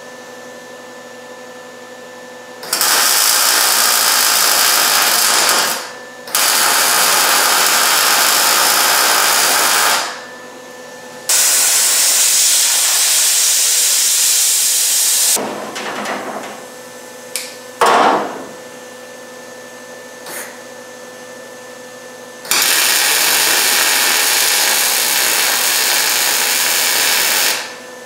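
MIG welder laying four separate weld runs of three to four seconds each on a 1972 Camaro's bumper brace brackets, a steady sizzling arc noise that stops between runs. A low hum fills the gaps, with a single sharp knock about eighteen seconds in.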